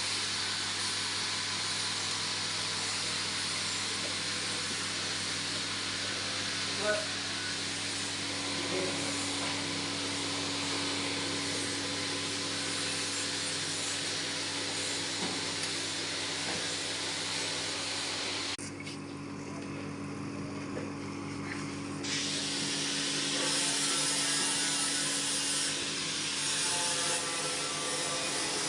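A six-rack herbal drying machine running with a steady motor-and-fan hum and airy hiss. The hiss drops off abruptly about 18 seconds in and comes back a few seconds later.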